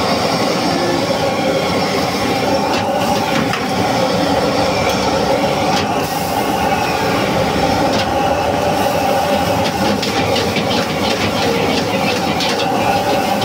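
High-powered gas wok burner running loudly and steadily, under the clatter of a metal ladle and spatula scraping and knocking against the wok as fried rice is stir-fried and tossed. The clatter is sparse at first and comes thick and fast in the second half.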